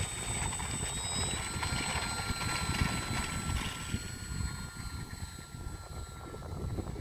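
Radio-controlled model autogyro's motor and propeller running at power for take-off: a steady high whine that steps up in pitch about one and a half seconds in and fades near the end as the model moves away. Wind rumbles on the microphone underneath.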